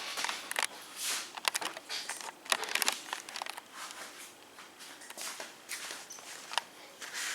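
Handling noise: scattered light clicks, taps and rustling from hands working with small parts.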